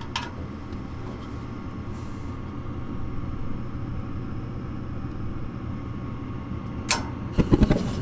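Gas furnace running with a steady low hum from its draft inducer fan. About seven seconds in there is a sharp click as the gas valve opens, then a quick run of low thumps as the burners light off a hand-held lighter's flame.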